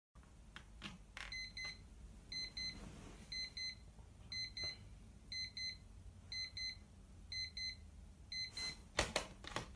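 Digital alarm clock beeping in quick double beeps at one high pitch, about one pair a second, about eight pairs in all. The beeping stops near the end and a few knocks follow.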